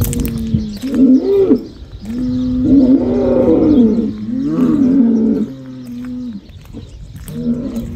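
Bulls bellowing: a run of repeated calls one after another, the longest in the middle.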